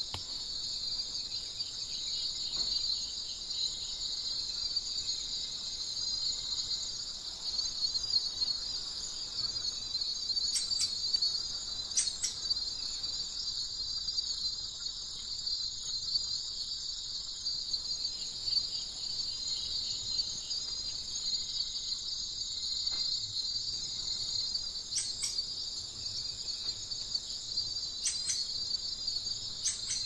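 Steady, high-pitched chorus of insects trilling without a break, with a few faint sharp clicks scattered through it.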